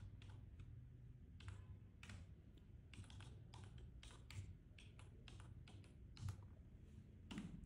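Faint typing on a computer keyboard: a string of irregular keystrokes as numbers are entered.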